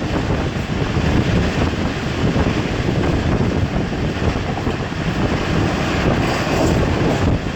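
Sir Syed Express passenger train running at speed: a steady rumble of wheels on rails, with wind noise on the microphone.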